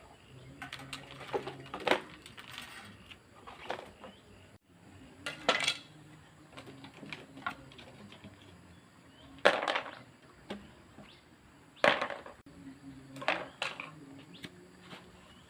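Metal parts and tools clinking and knocking at irregular intervals, several sharp knocks a few seconds apart, as small hardware is handled on a work surface.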